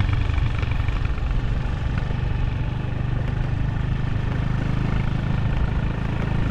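A vehicle's engine running steadily while travelling, a continuous low drone with road noise and no change in pitch.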